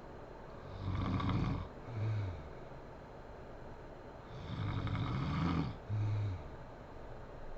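A sleeping woman snoring: two long snoring breaths, each followed by a short, low puff of breath.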